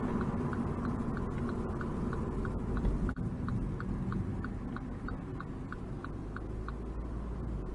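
Car turn-signal indicator ticking evenly, about three ticks a second, over the low cabin rumble of a MINI John Cooper Works on the move; the ticking stops near the end.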